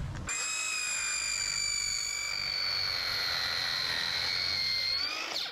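Battery-powered circular saw with a freshly fitted blade cutting through timber: a steady high motor whine whose pitch sags slowly under load, lifts briefly as the blade comes free, then stops sharply about five seconds in. The battery is down to its last bar.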